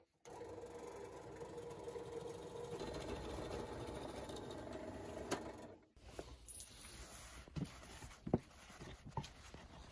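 Einhell BT-BD 1020 D bench drill press starting up and running steadily with a held hum while its bit bores into a wooden beam. The hum cuts off sharply after about six seconds, and a few dull knocks follow as the wooden beam is handled on a workbench.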